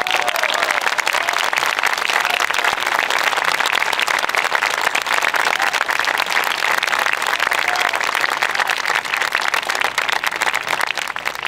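Large crowd applauding steadily, a dense patter of many hands, with a few shouts rising briefly above the clapping.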